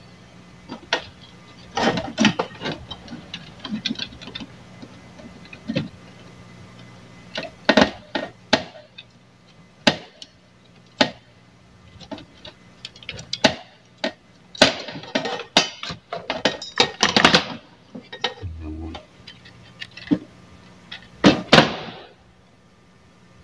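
Irregular small clicks and taps of hand tools working on a TV circuit board, in uneven clusters, over a steady low hum.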